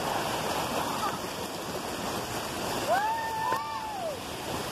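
River rapids rushing over rocks, with a child's single long yell about three seconds in.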